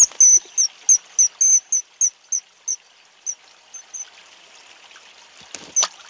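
Common kingfisher giving a string of short, shrill high-pitched calls, about three a second, thinning out after about three seconds, over the steady hiss of running water. One more louder call comes near the end.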